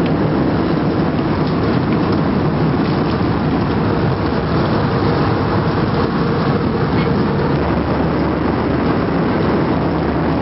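Steady rushing roar inside an Airbus jet airliner's cabin in flight: the constant noise of the engines and the air streaming past the fuselage.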